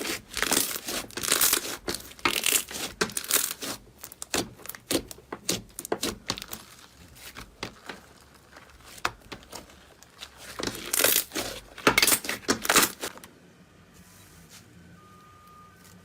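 Slime being squeezed, poked and pulled by hand, giving crackling, crinkly sticky sounds in quick bursts, thinning out in the middle with a louder flurry before stopping near the end.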